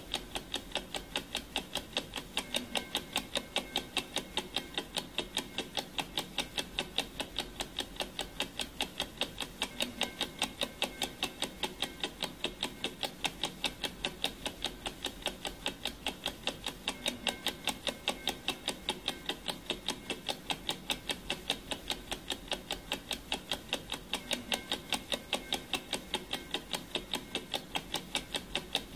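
Clock-ticking sound effect: an even, rapid train of sharp ticks, several a second, steady throughout.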